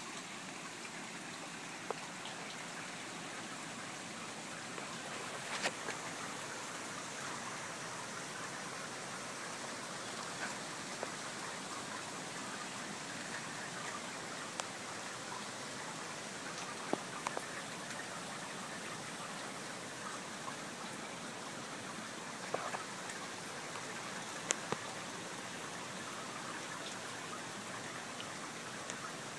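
Steady rain falling: a constant even hiss with scattered sharp drip-like ticks.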